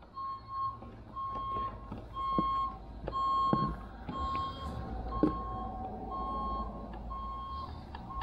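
Electronic beeper sounding one steady tone over and over, about once a second, with a few light clicks in between.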